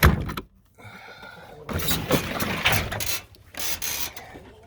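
Wood knocking and scraping: a sharp knock at the start, a short creak about a second in, then rubbing and scraping, as a wooden chicken-coop door is worked open.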